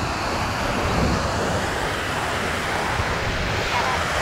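Water rushing steadily over a concrete weir spillway, with wind buffeting the microphone.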